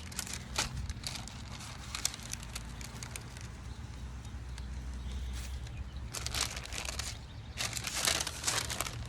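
Metal spatula clicking and scraping on a hot flat-top griddle as ground chicken is pressed flat onto a tortilla, with faint sizzling. Two longer bursts of scraping come in the second half. A steady low hum runs underneath.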